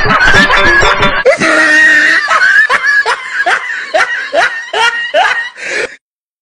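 Loud laughter, ending in a quick run of short 'ha' pulses, about two or three a second, that cuts off abruptly near the end.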